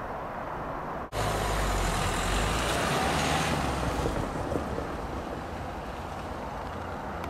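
A Royal Mail delivery van drives over the level crossing and away, its engine and tyres loudest for about three seconds and then fading, over a steady low engine hum. The sound changes suddenly about a second in.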